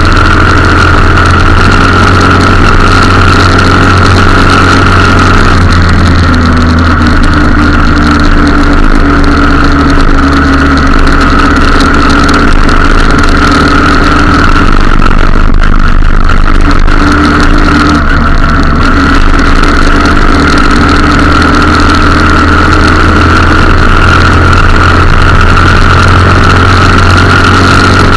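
A vehicle's engine running steadily while under way, heard loud and close on board over constant road and wind hiss. The engine note shifts in pitch about six seconds in and again past the middle.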